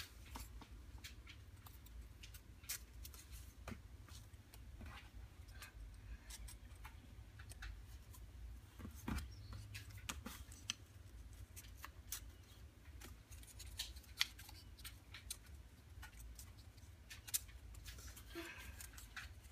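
Laser-cut wooden tail parts of a model aircraft being fitted together by hand: faint, irregular light clicks and taps as the tongue-and-groove pieces are pushed into each other, over a low steady hum.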